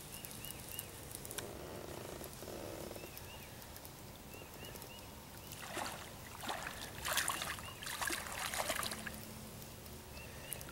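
A small hooked catfish splashing at the water's surface as it is reeled in to the boat, in several loud splashes over a few seconds in the second half. Birds chirp faintly in the background.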